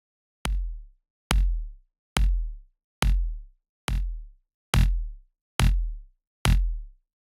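Layered electronic kick drum loop: a Big Kick plugin kick layered with a looped snare fragment and the looped attack of another kick, struck eight times at an even pace of a little over one hit a second. Each hit is a sharp click over a deep boom that dies away in about half a second, with slight differences from hit to hit.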